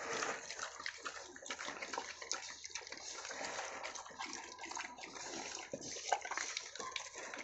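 A group of piglets feeding, heads down at the floor, making a dense, uneven run of wet slurping and chewing noises.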